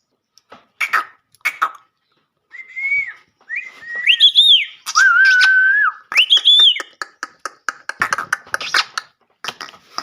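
Pet parrot whistling and chattering: a couple of short scratchy calls about a second in, then clear whistled notes that rise and fall, one held steady for about a second, and a fast run of harsh chatter near the end.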